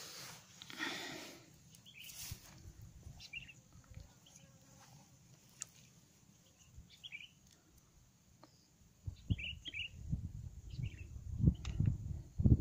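Small bird chirping in short high calls every second or two. Irregular low rumbling bursts come in from about nine seconds in.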